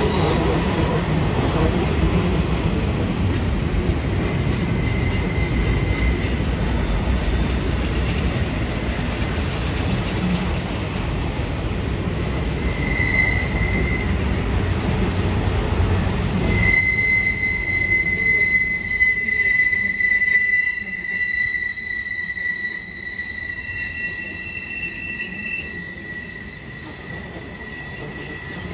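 Union Pacific double-stack intermodal well cars rolling past on a tight curve: a loud rumble and clatter of steel wheels on rail, broken by short high-pitched wheel squeals. About two-thirds through the rumble drops away sharply, and a steady high flange squeal from the wheels grinding the curve carries on, with a fainter higher squeal above it.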